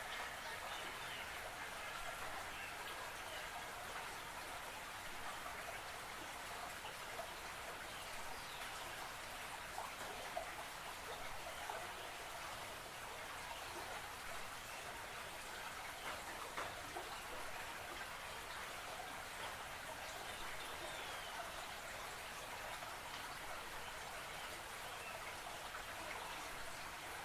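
Creek water trickling and splashing steadily, with a few faint bird chirps here and there.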